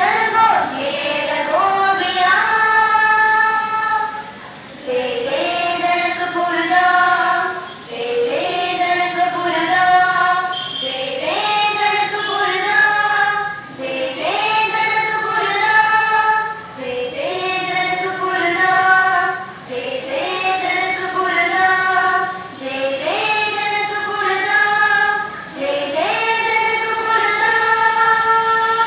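A group of children singing a song together, in short repeated phrases that each rise and then hold a long note, with brief pauses between phrases.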